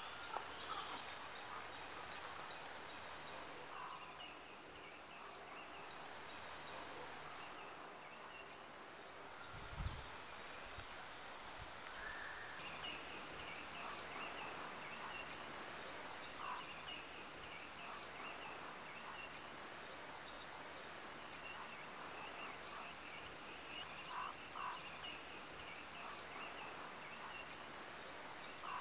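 Woodland ambience: a steady outdoor hush with small birds calling on and off, a brief louder run of calls about eleven seconds in.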